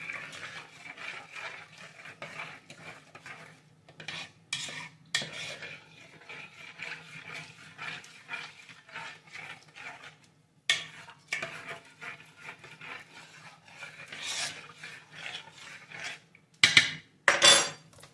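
A spoon stirring a milk, sugar, oat and sunflower-seed mixture in a bowl, scraping and clinking unevenly against the sides, with two louder clatters of utensil on bowl near the end. A faint steady hum runs underneath.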